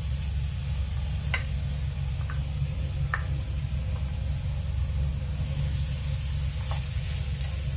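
Minced garlic frying in a nonstick pan, a steady sizzle with a few sharp pops from the hot fat, stirred with a spatula near the end. A steady low hum runs underneath.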